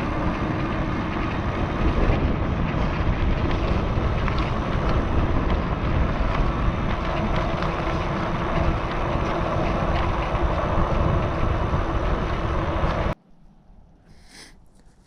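Riding noise from an e-bike at speed: wind rushing over the microphone together with tyre rumble, a steady loud roar that cuts off abruptly near the end.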